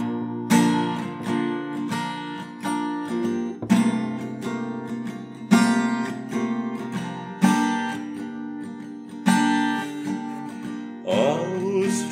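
Acoustic guitar strumming the chords of a song's intro, with a strong accented stroke about every two seconds and lighter strokes between. A singing voice comes in near the end.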